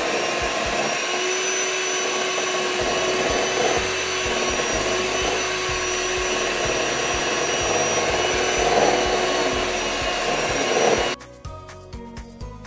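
Electric hand mixer running steadily with its beaters in cake batter, a loud, even whine. It switches off suddenly about eleven seconds in, leaving background music.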